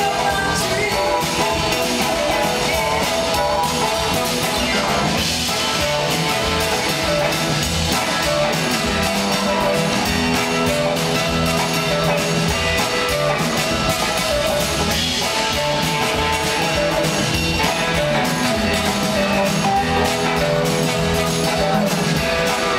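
Live blues-rock band playing an instrumental passage: electric guitars over drums, bass and organ, with a horn section, recorded from the audience in a concert hall.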